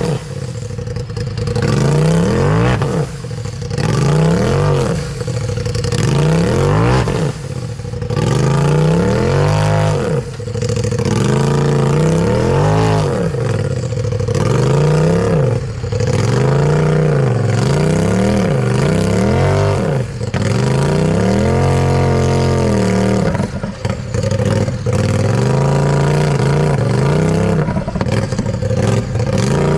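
Rock buggy's engine revved again and again in short bursts, its pitch rising and falling every second or two, with one longer held rev about two-thirds of the way through. The buggy is straining to climb a steep rock ledge it is stuck on.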